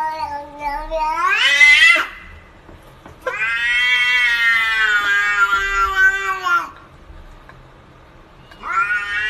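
Domestic cat meowing: a call that rises in pitch and breaks off about two seconds in, then one long drawn-out meow like "whyyy" lasting about three seconds, and another meow starting near the end.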